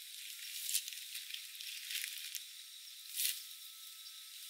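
Crinkly rustling of a synthetic ground sheet being unfolded and spread over grass, with three louder swishes about a second apart.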